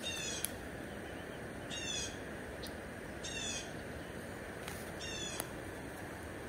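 A songbird singing the same short phrase of quick descending high notes four times, about every second and a half, over a steady rushing background, with a few faint sharp clicks.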